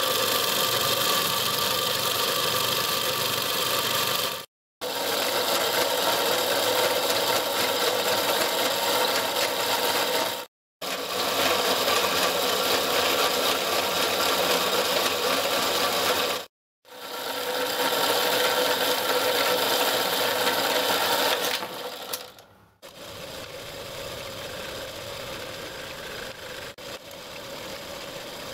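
Small motor-driven power hacksaw cutting through a block of steel clamped in its vise, a steady reciprocating rattle of the blade, broken off sharply three times. Near the end it gives way to quieter clicks of a workpiece being set up in a four-jaw lathe chuck with the chuck key.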